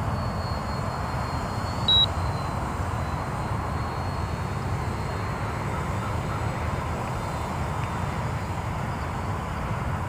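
Distant engine drone of a radio-controlled Extra model airplane flying high overhead, under a steady outdoor rush. A thin high whine fades out with a short blip and a brief bump about two seconds in.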